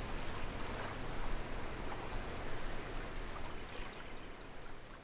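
Outdoor ambience of trickling water: a steady hiss with faint scattered ticks, fading out near the end.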